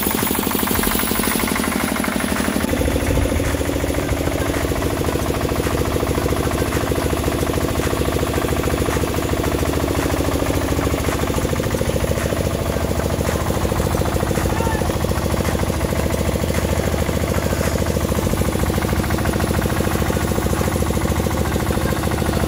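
Truck's diesel engine idling with a fast, even clatter; its note shifts slightly about three seconds in, then it runs steadily.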